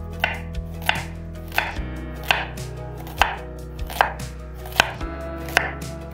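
Kitchen knife slicing a carrot into rounds on a wooden cutting board, each cut ending in a sharp knock of the blade on the board, about one every two-thirds of a second.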